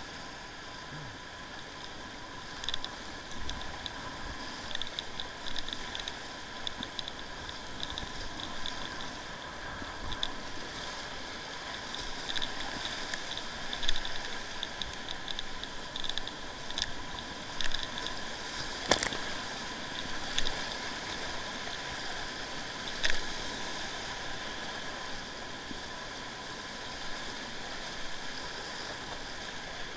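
Whitewater rapids rushing steadily around a kayak, with several sudden splashes of water and paddle strokes close by.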